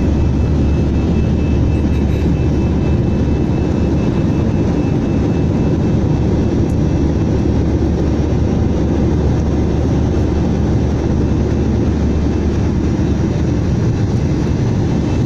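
Steady, loud airliner cabin noise heard from a window seat: a constant low rumble of the engines and airflow.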